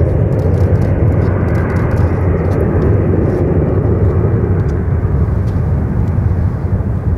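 Tupolev Tu-154 airliner climbing out after takeoff, its three rear-mounted jet engines making a loud, steady, low rumble that eases slightly near the end as it draws away.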